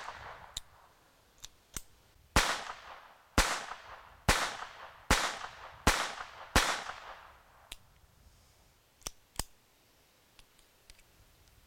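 Colt 1908 Vest Pocket .25 ACP pistol fired six times at a steady pace, about a shot a second, each crack ringing out briefly. It is followed by a few sharp clicks as the pistol is handled.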